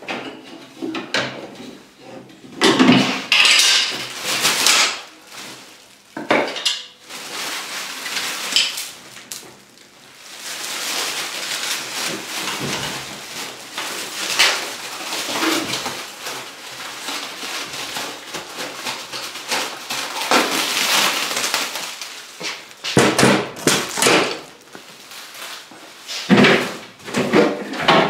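Plastic stretch wrap film and plastic sheeting being handled: rustling and crinkling, with a long stretch of film being pulled and worked in the middle and bursts of clatter and knocks near the start and the end.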